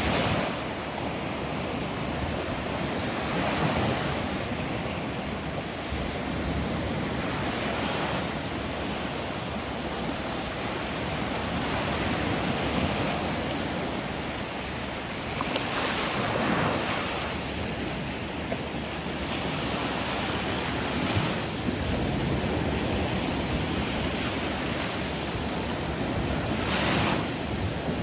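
Sea waves surging and breaking on the shore, each wave swelling up and washing back every few seconds; the biggest surges come about halfway through and near the end.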